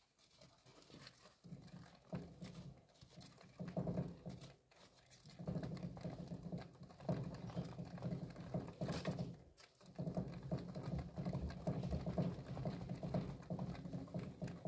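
A gerbil running in a wooden exercise wheel: a rapid patter of small feet on the tread with the wheel's rumble. It comes in short spurts at first, then runs steadily, with a brief stop about ten seconds in.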